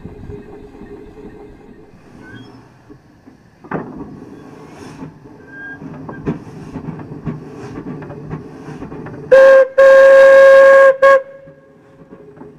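1910 Minneapolis 22 hp steam traction engine running with a low clatter and a few sharp knocks, then its original steam whistle blows a short blast followed by a longer blast of about a second, the loudest sound.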